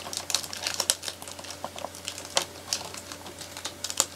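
Hands working at a cardboard-and-plastic doll box, with quick irregular clicks, taps and crinkles of the packaging as the doll is worked free of its ties.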